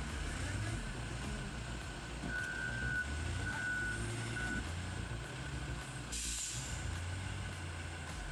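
Heavy diesel machine running with a low rumble. A few electronic beeps come in the middle, like a reversing alarm, and a short burst of air hiss follows about six seconds in.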